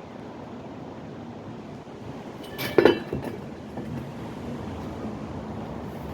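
Steady wind noise with a single sharp, ringing clink a little before halfway through, the loudest sound here.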